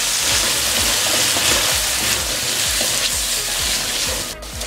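Boiled chickpeas and whole spices sizzling in hot oil in a wok, stirred with a silicone spatula that scrapes and knocks against the pan in repeated strokes. The sizzle dips briefly near the end.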